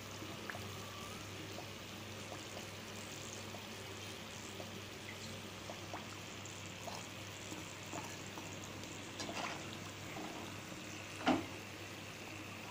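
Badusha frying in oil on low heat, a faint steady sizzle, with scattered light clicks of a steel slotted spoon against the pan as the pieces are lifted out and drained. A louder knock comes about eleven seconds in as the spoon meets the steel pot of sugar syrup.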